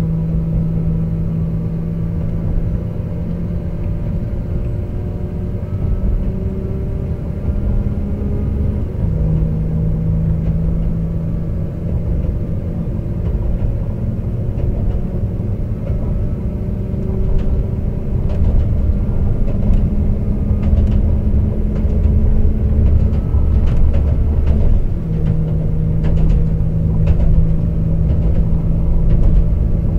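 Class 197 diesel multiple unit heard on board while running: a steady engine drone whose pitch steps up and down a few times, over a low rumble from the running gear. Short sharp clicks and knocks come through in the second half.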